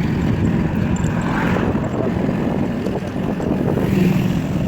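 An engine or heavy machine running steadily with a loud, low rumble.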